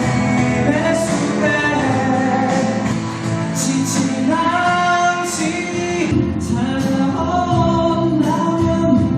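Wedding song sung over musical accompaniment, the voice holding long notes.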